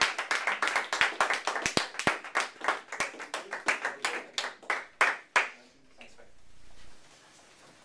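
A small audience clapping, the applause thinning out and stopping about five and a half seconds in.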